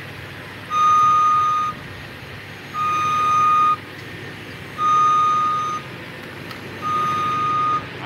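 Boom lift's motion alarm beeping while the boom extends: four long, steady beeps of about a second each, about two seconds apart, over a low steady hum.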